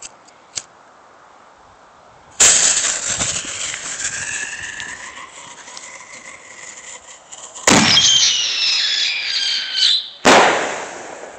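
Whistling voodoo firework going off. A sudden loud rushing whistle starts about two seconds in and fades over several seconds. A second, higher whistle breaks out about eight seconds in and falls slightly in pitch, followed by a sharp burst about ten seconds in.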